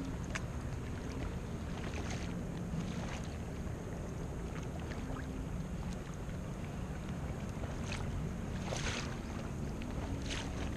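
Kayak paddling on choppy open water: water sloshing and lapping around the hull, with a few short paddle splashes, the clearest about two seconds in and around nine seconds in. A low steady hum and wind on the microphone run underneath.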